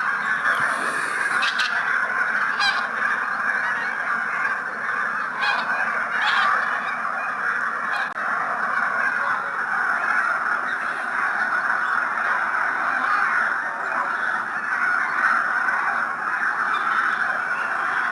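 A large flock of wild geese honking, many calls overlapping into a continuous din, with a few nearer, sharper calls standing out in the first half.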